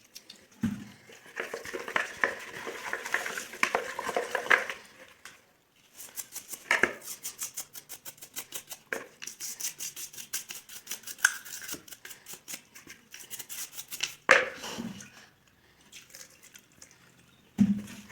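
Mower carburetor being washed by hand in a container of petrol: irregular clinks and sloshing against the container, then for about eight seconds rapid, regular scrubbing strokes, with a few sharp knocks.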